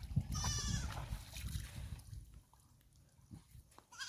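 Dumba (fat-tailed sheep) bleating, a short quavering call about half a second in and another starting near the end, over a low rumbling noise.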